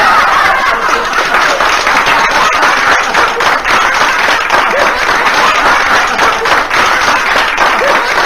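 Live audience applauding: dense, steady clapping.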